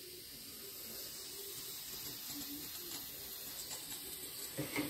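Butane gas soldering iron hissing faintly and steadily, growing slightly louder, as the gas burns to heat the tip while it warms up.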